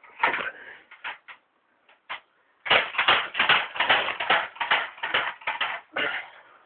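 Battery-powered BB (airsoft) gun firing: a few single shots, then about three seconds in a rapid string of shots at about three to four a second.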